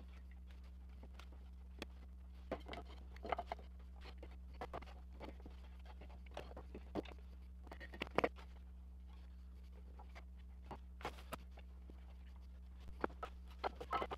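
Scattered light clicks and knocks of wooden paddle-blade strips and aluminium bar clamps being handled and set for gluing, the sharpest pair about eight seconds in and a quick cluster near the end, over a steady low hum.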